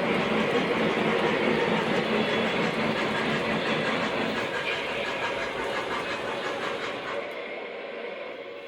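O gauge model train running on its track, a steady rumble with faint rapid clicking, growing fainter over the second half.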